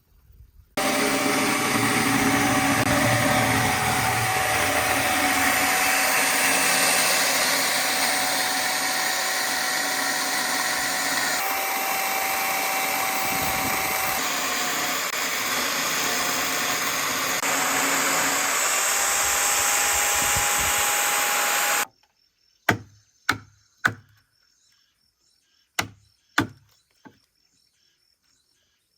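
An electric woodworking power tool runs steadily while cutting timber, with a steady whine through the noise, and stops abruptly. Then come sharp, separate knocks on wood, irregular and a second or so apart.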